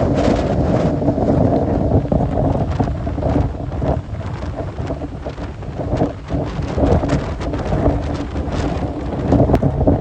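Strong wind buffeting the microphone over heavy storm surf breaking on the shore, rising and falling in gusts, a little softer about halfway through.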